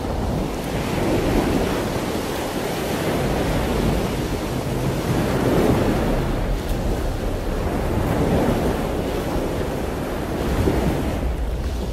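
Heavy ocean surf: large waves breaking and crashing, with wind, a continuous rushing that swells and eases every few seconds.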